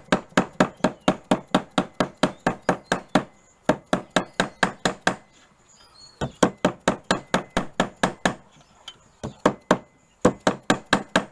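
Rapid hammer blows on a copper sheet held over an anvil, about five strikes a second in several quick runs with short pauses, folding the copper's edge along a marked line.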